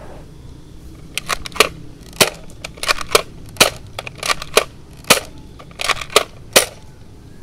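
Nerf N-Strike Elite Disruptor blaster being primed and fired over and over: plastic clacks come in four quick groups, each followed by a single sharp shot, with the clicks starting about a second in and stopping shortly before the end.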